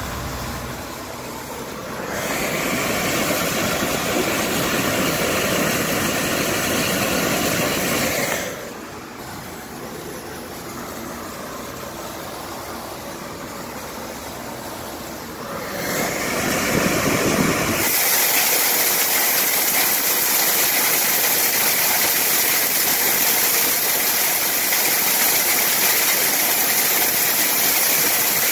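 Duct-cleaning equipment running, with air rushing through sheet-metal ductwork as a steady noise. It grows louder about two seconds in, drops back for several seconds in the middle, then swells into a louder, brighter hiss about two-thirds of the way through.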